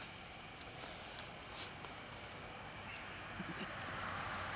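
Steady high-pitched night chorus of crickets, with one brief click about a second and a half in. Near the end the noise of a vehicle on the road rises as it approaches.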